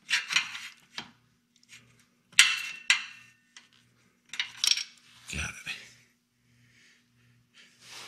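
Pliers and small steel hardware clinking and scraping in four or five short bursts, as a cotter pin is worked out of the brake pedal pivot shaft and the loose pieces are put down.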